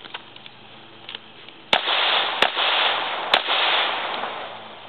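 Three gunshots, a little under a second apart, starting near two seconds in, each report trailing off into a long hissing echo.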